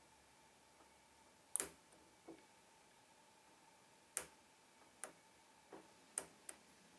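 Faint, irregular metal clicks of a lock pick and tension wrench working the pins of a Trioving 5632 padlock, about seven sharp clicks at uneven intervals.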